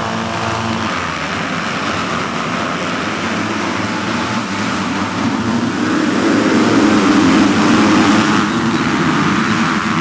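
A pack of MX2 motocross bikes accelerating off the start together, many engines revving at once into one continuous blare that grows louder about six seconds in.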